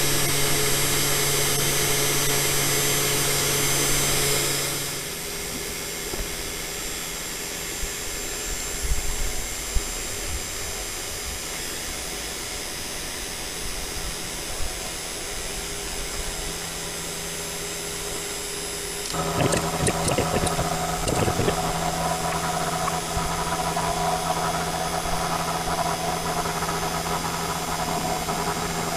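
Genmitsu 4040 Pro CNC router's cheap 500 W spindle running with a steady hum and a slight out-of-balance vibration, which the owner puts down to its cooling fan, as the bit cuts a spiral into a turning American white oak dowel. The sound is louder for the first five seconds, drops quieter while the cutter lifts out and follows the spiral back, then grows louder again about two-thirds of the way through as it plunges in another half millimetre and cuts, with a few sharp ticks as it bites.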